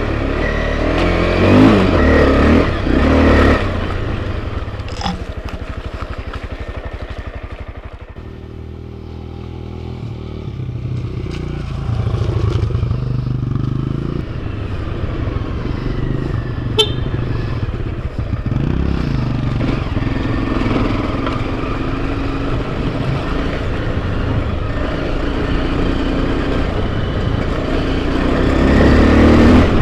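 Enduro motorcycle engine running on a trail ride, revving up and down with the throttle, loudest near the start and the end. A single sharp click comes a little past halfway.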